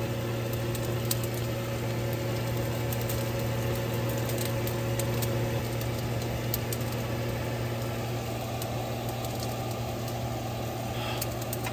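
A vehicle engine idling steadily, a low even hum, with a few faint clicks over it.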